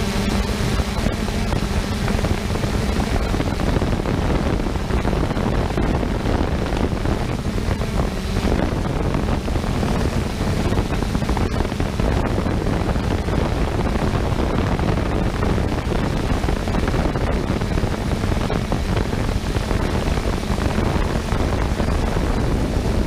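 Wind rushing over the microphone of a GoPro carried on a flying 3DR Solo quadcopter: a loud, steady rumbling hiss. A low, steady hum underneath fades out within the first several seconds.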